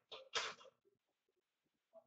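A sneeze: a short rush of breath noise in two or three quick puffs, the loudest about half a second in, then faint scattered small sounds.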